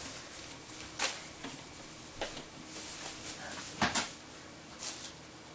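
Handling noise: a handful of short, soft rustles and clicks about a second apart, as fingers turn a small paper silica gel packet.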